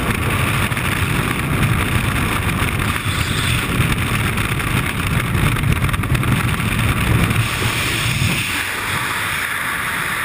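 Freefall wind rushing and buffeting a body-mounted camera's microphone, a loud steady rush with a heavy low rumble that eases about eight and a half seconds in.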